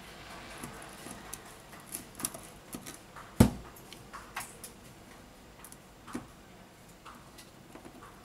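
Scattered small clicks and taps from a smartphone's display and metal frame being pressed and handled on a silicone repair mat, with one louder knock about three and a half seconds in.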